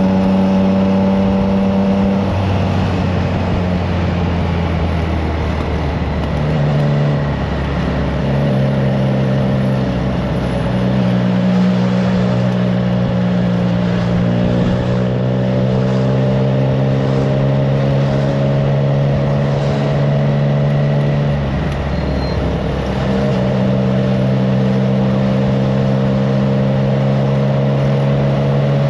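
Triumph Trident 660's inline three-cylinder engine running through an aftermarket FireTong exhaust while riding. The engine note holds steady for stretches, and its pitch drops and climbs again several times.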